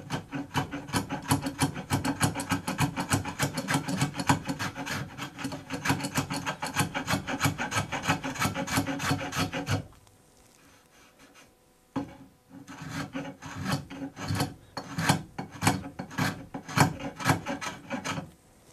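Spokeshave cutting along a wooden chair rail in quick, short scraping strokes, several a second, shaving down a raised, misaligned old repair to level it. The strokes stop about ten seconds in and start again two seconds later, more spaced out.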